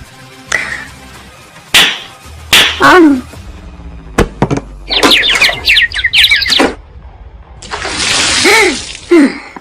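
Edited sound effects mixed like music: several sharp hits, a run of quick chirping tones about halfway through, and a loud noisy burst with a falling cry near the end.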